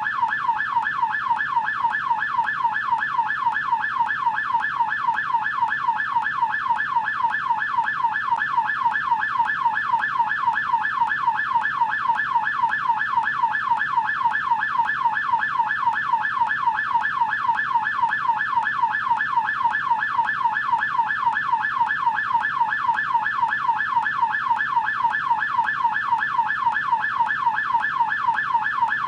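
US police car electronic siren in yelp mode: a fast, even wail sweeping up and down in pitch several times a second, without a break.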